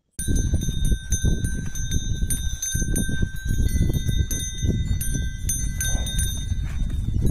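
Cattle grazing and shuffling close by, with several steady high-pitched ringing tones over a dense low rumble. It starts abruptly just after the start.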